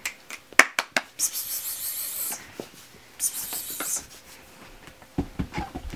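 Puppies scuffling and scrabbling on carpet: a few sharp clicks, then two long scratchy rubbing swishes, and soft thumps near the end.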